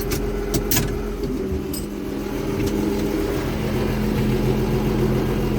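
Case International tractor engine running at a steady speed, with a few sharp clicks or knocks in the first couple of seconds.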